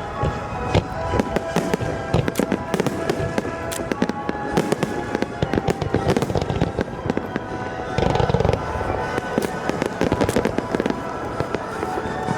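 Aerial fireworks going off in rapid succession, a dense run of bangs and crackles with a heavier boom about eight seconds in, over music that plays throughout.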